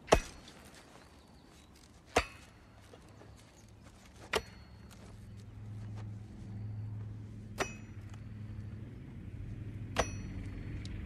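An axe chopping wood on a stump: five sharp blows a couple of seconds apart, the first the loudest and the last two with a brief metallic ring. Under them a low engine hum grows louder from about four seconds in, a vehicle approaching.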